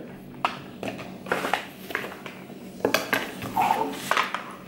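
Scattered light clicks and taps, about eight over a few seconds, with no steady sound between them.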